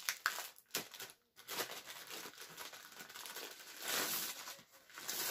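Packaging crinkling and rustling as it is opened and handled, with a few light clicks and a louder rustle about four seconds in.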